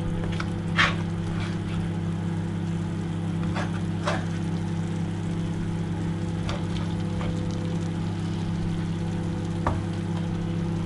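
A spatula stirring and scraping thick mutton curry in a non-stick frying pan, with a few short sharp taps against the pan, over a steady low hum.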